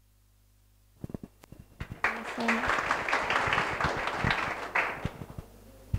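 Small audience applauding. After about a second of silence, a few scattered claps come in, then steady clapping that dies away about five seconds in.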